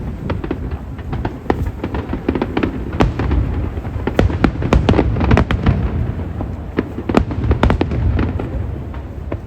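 Aerial fireworks bursting in quick, irregular succession: sharp bangs and crackles over a continuous low rumble.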